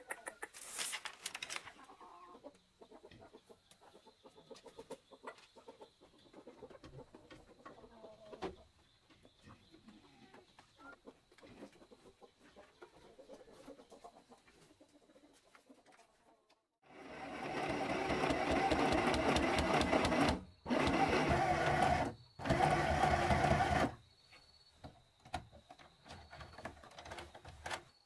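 Chickens feeding, with soft pecking clicks and clucks, then an electric sewing machine stitching in three runs, the first about three seconds long and the next two shorter; the machine is the loudest sound.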